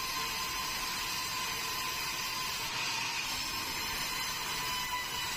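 Sawmill band saw running steadily while sawing a meranti log fed through on the carriage: a constant whine over a dense hiss.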